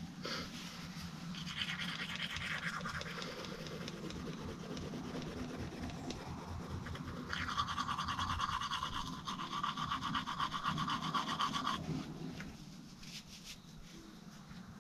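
Toothbrush scrubbing teeth in quick back-and-forth strokes: a short spell of brushing near the start, then a longer, louder spell in the middle that stops about two-thirds of the way through.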